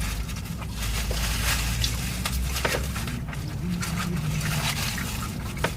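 Close-miked eating sounds: scattered wet clicks and crackles of chewing over a steady low hum.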